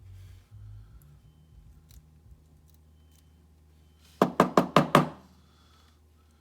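Five quick, sharp knocks in a row, about six a second, from a small metal lock core being rapped against a hard surface to shake a stuck spring out of its pin chamber. Faint small clicks of handling come before them.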